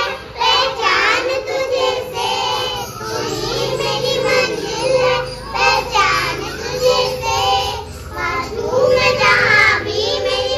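Children singing together.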